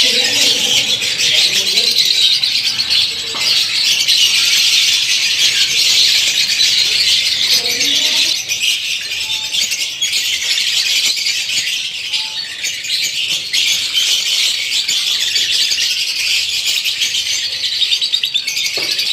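A flock of lovebirds chattering continuously, a dense mass of rapid high-pitched chirps and squawks.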